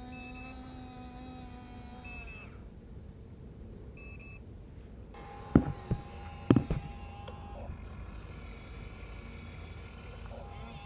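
Small electric motors of a Huina 1593 RC excavator whining as it works. The whine stops for a couple of seconds a third of the way in, and two sharp knocks about a second apart, the loudest sounds here, come about halfway through.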